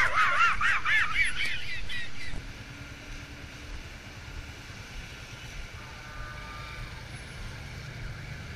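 A high, warbling sound effect of quickly repeated rising-and-falling notes that cuts off abruptly about two seconds in. After it, only low, steady traffic and engine noise is left.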